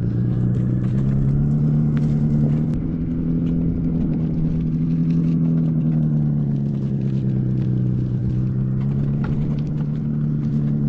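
Simulated engine sound from the EUC World app's AVAS, played through a KingSong 16X electric unicycle's built-in speaker while riding. Its pitch climbs over the first couple of seconds, holds, drops back about seven seconds in, then rises again near the end, following the wheel's speed.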